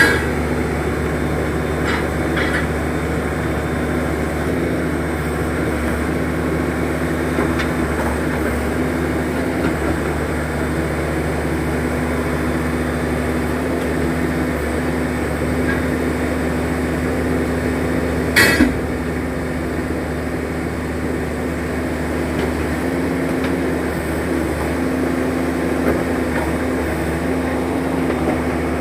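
The diesel power unit of a ZT-21 horizontal directional drilling rig runs with a steady drone and hum. A single sharp clank cuts through about two-thirds of the way in.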